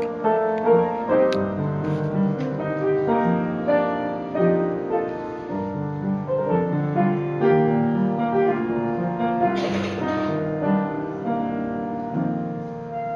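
Piano music: a slow piece of sustained chords and melody notes, with a brief burst of noise about ten seconds in.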